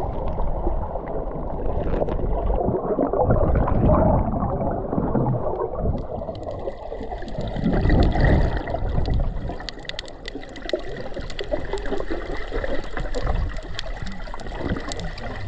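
Muffled water sloshing and gurgling around a camera in the water, rising and falling in swells. From about halfway through, many faint clicks are added.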